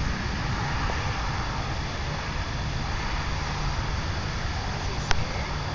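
Steady road and engine noise of a moving car, with a single sharp click about five seconds in.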